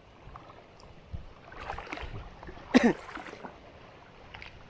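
Faint water sounds around a small fishing boat, with a few light knocks. About three seconds in comes one short, sharp sound that slides down in pitch.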